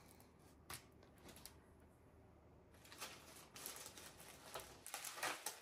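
Faint, scattered rustles and soft taps of a diamond-painting kit and its plastic packaging being handled and moved about.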